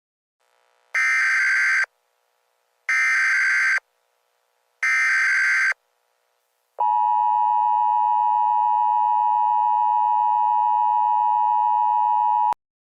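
Emergency Alert System tones: three one-second bursts of the digital SAME header warble, evenly spaced, then the steady two-tone attention signal held for about six seconds. The tone cuts off suddenly near the end.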